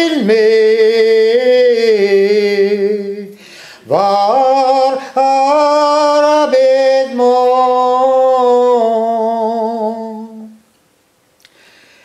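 An older man singing a Breton song solo and unaccompanied, in two long phrases of held, wavering notes with a short breath between them; the voice stops about ten and a half seconds in.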